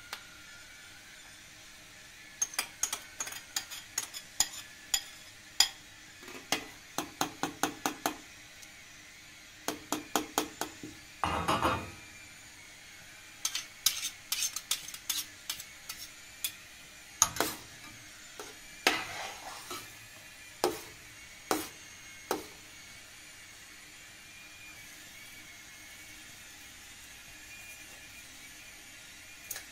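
Cooking utensils clinking and scraping against pots and dishes: runs of quick taps and clinks, with a longer scrape near the middle. They stop about three quarters of the way through.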